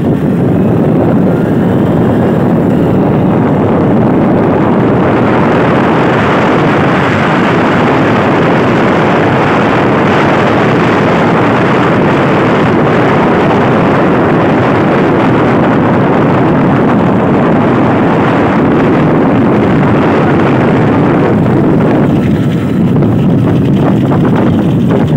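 Loud, steady rush of wind and road noise from a vehicle moving along the road behind the racing bullock carts, with its engine running underneath.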